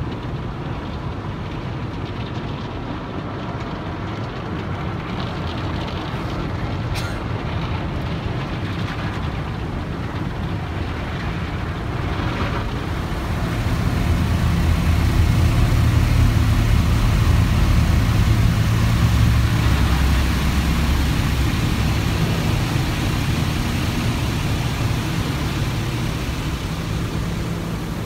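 Automatic car wash heard from inside the car's cabin: water spray hissing on the windshield and body over a steady low machinery rumble. About halfway through it gets louder as the spinning brushes scrub across the windshield.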